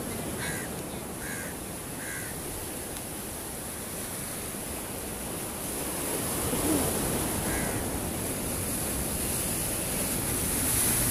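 Heavy sea surf breaking and washing over the boulders of a rock breakwater, a steady rushing noise that swells about six seconds in and again near the end. A bird gives a few short calls in the first couple of seconds and once more about seven seconds in.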